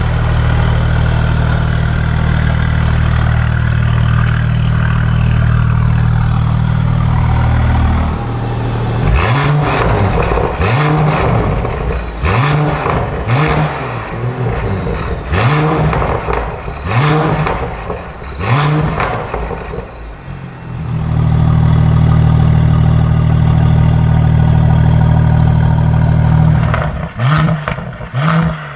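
Mercedes-AMG GT53's turbocharged 3.0-litre inline-six running through a Fi Exhaust valvetronic catback with Sport 200-cell downpipes, exhaust valves open. It idles steadily for about eight seconds, then gives a string of about ten quick throttle blips, each rev rising and dropping sharply. It then runs steadily again, with two more blips near the end.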